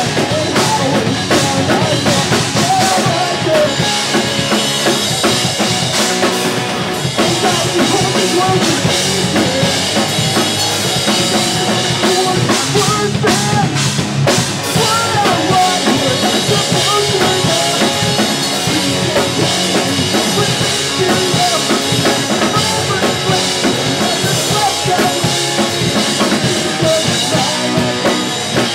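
A pop-punk band playing a song live and loud: a drum kit with bass drum and snare driving steadily under electric guitars and bass guitar.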